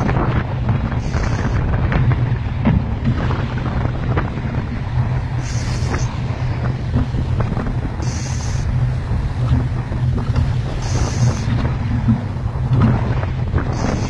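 Strong wind buffeting the microphone on a fishing boat at sea, over a steady low rumble. A short, high hiss comes back about every three seconds.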